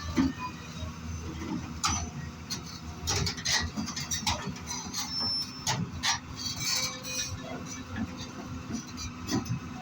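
Hyundai excavator's diesel engine running steadily, with repeated metallic clanks and knocks.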